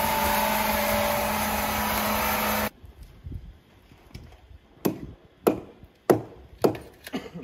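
A wood-sawing machine's motor running steadily with a low hum, cutting off suddenly about two and a half seconds in. Then about five sharp knocks on wood, roughly every half second.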